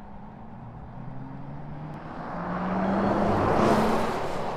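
BMW iX3 electric SUV driving through a road tunnel, with tyre and road noise swelling to a peak about three and a half seconds in as it passes close, then fading. Under it runs a faint low hum that slowly rises in pitch.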